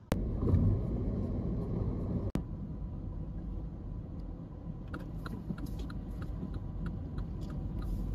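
Car cabin noise while driving slowly: a steady low engine and tyre rumble. From about five seconds in, the turn-signal indicator ticks evenly, about three ticks a second.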